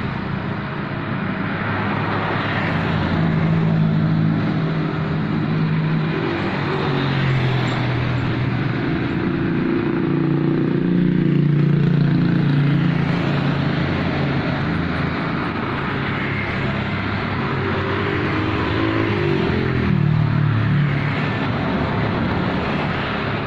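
Road traffic: a steady stream of motor vehicles passing close by, their engine notes swelling and fading in pitch as one after another goes past.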